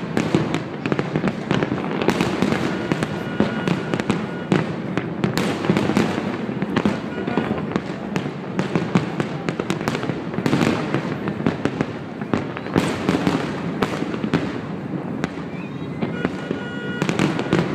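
Aerial fireworks display: a dense, continuous barrage of bangs and crackling with no pause, with a few faint whistling tones among the blasts.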